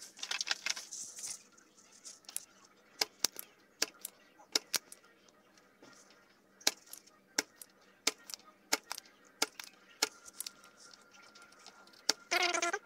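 Sharp clicks and taps at irregular intervals, about one or two a second, from hand tools working components off a CRT TV's power-supply circuit board during desoldering.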